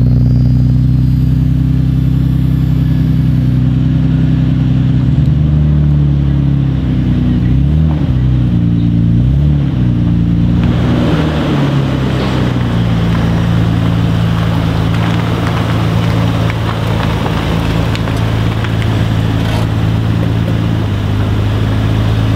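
Nissan Skyline R34 GT-R's twin-turbo RB26DETT straight-six idling steadily at the exhaust. A few small rises and dips in revs come around eight to ten seconds in. From about eleven seconds more hiss joins the engine note, which then holds steady.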